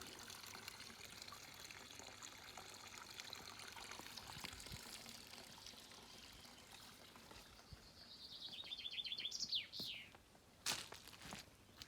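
Water trickling steadily, with small birds chirping over it. Near the end a bird gives a quick trill that falls in pitch, followed by two short knocks.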